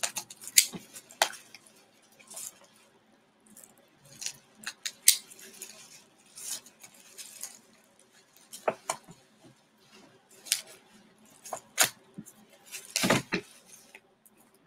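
Irregular clicks, scrapes and rustles of packaging being handled and opened by hand, with a louder burst of noise near the end.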